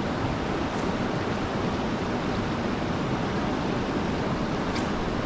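Fast-flowing river water rushing past close by: a loud, steady wash of noise.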